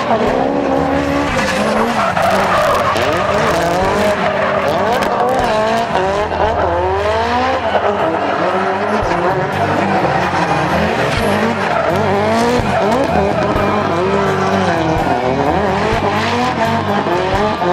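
A drift car's engine revving hard and falling off again and again, with tyres squealing as the car slides sideways.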